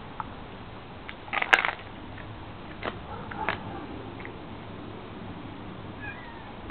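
Siberian husky chewing a whole raw chicken, with wet crunching and cracking of the bones. The loudest burst of crunches comes about a second and a half in, and a couple of single cracks follow around three seconds in.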